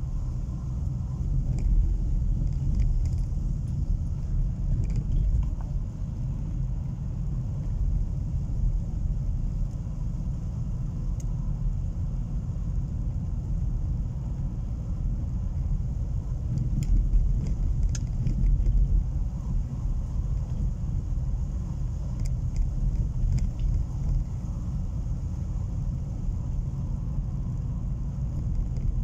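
Car driving slowly on a rough, patched asphalt road, heard from inside the cabin: a steady low rumble of engine and tyres, with faint clicks and rattles now and then.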